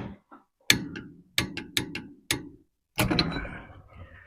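Ratchet wrench clicking in a series of sharp clicks as the outer axle nut of a 14-bolt full-float axle is torqued with a spanner socket.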